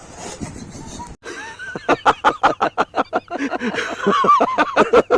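Hearty laughter, starting a little after a second in: a long run of rapid, evenly paced ha-ha bursts, several a second, that goes on without a break.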